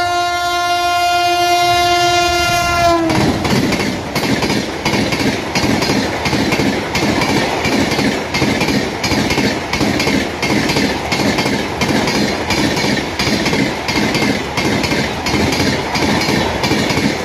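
Locomotive horn sounding one long blast of about three seconds, its pitch dropping as the engine passes and the horn stops. A high-speed passenger train of LHB coaches then rushes past, its wheels clattering over the track in a fast, steady clickety-clack.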